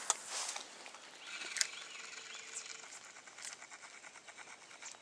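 Fishing reel being wound in after a cast, a sharp click near the start and then a long run of fine, even ticks from the turning crank.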